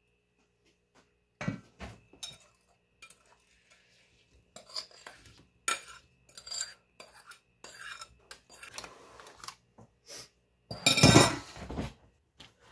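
Kitchen utensils clinking and scraping against a mixing bowl and a metal loaf pan as batter is spread and diced apple filling is scraped out of the bowl: scattered short clicks and scrapes, with the loudest and longest scrape, about a second long, near the end.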